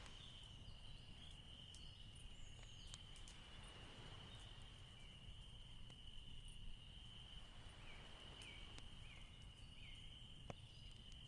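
Near silence: faint room tone of low hum and hiss with a steady, high-pitched whine, and a faint click about ten and a half seconds in.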